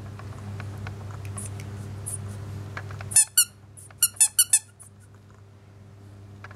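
Squeaky toy stick squeaking in short, high-pitched squeaks: two in quick succession, then a rapid run of four about a second later.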